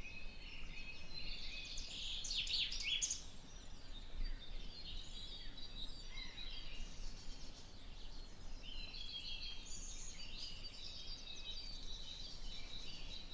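Several songbirds singing at once, a dense mix of chirps, trills and whistles, busiest about two to three seconds in.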